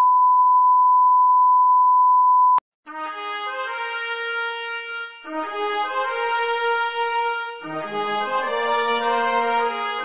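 Broadcast bars-and-tone: a steady, pure test tone that cuts off abruptly a little over two and a half seconds in. After a brief silence, brass fanfare music begins, with held chords changing every two to three seconds.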